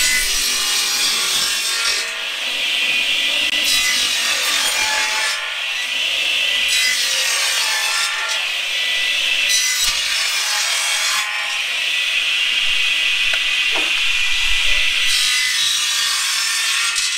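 Electric log saw running, its blade cutting through dry wood splits about five times, each cut lasting one to two seconds. Between cuts the free-spinning blade and motor keep up a steady whine.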